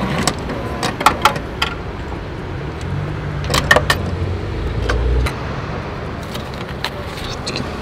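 Clicks and metallic clinks from a street parking-ticket machine as its buttons are pressed and coins go in, with a low steady hum for about two seconds near the middle that stops abruptly just after five seconds.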